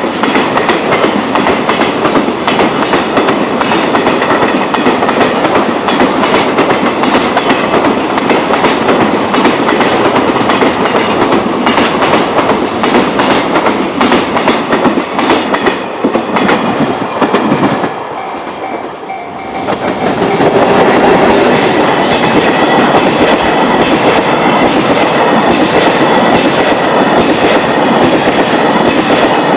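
Freight trains rolling past close by, their wheels clacking over rail joints. First a container train; then, after a brief drop in level about two-thirds of the way through, an empty oil tank train passes with a regular clack of joints.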